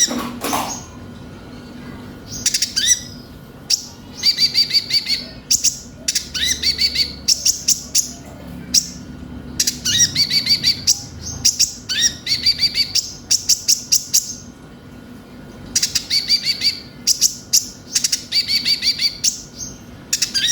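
Kolibri ninja sunbird (konin) singing in repeated bursts of rapid, high-pitched chirping trills, each about a second long with short pauses between.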